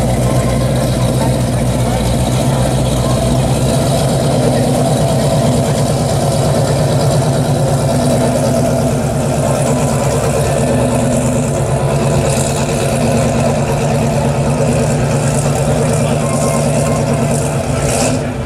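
Chevrolet Chevelle SS's V8 idling through its exhaust as the car creeps past, a steady, pulsing beat.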